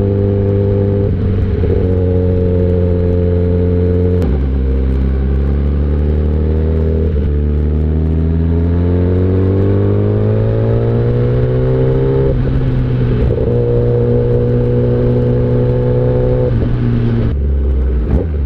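Inline-four superbike engine pulling under load while riding. It shifts up about four seconds in, then climbs steadily in revs and shifts up again, with another drop in pitch near the end.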